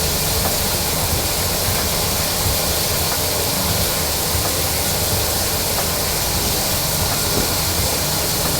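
Shower running: a steady, even hiss of spraying water.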